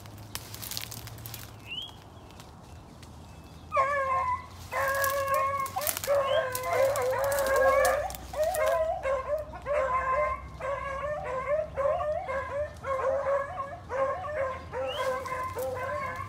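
Beagles baying on a rabbit's trail, a run of repeated, overlapping calls that starts about four seconds in and keeps going. Before that, brush and dry leaves crunch underfoot.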